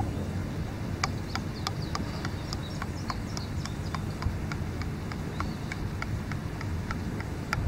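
Two-part paint activator pouring slowly from a metal can into a plastic mixing cup, with irregular light clicks, a few a second, over a steady low rumble.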